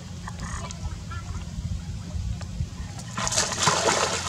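Water splashing hard as baby monkeys thrash in a muddy pond, loudest for about the last second. A short, high animal call sounds about half a second in.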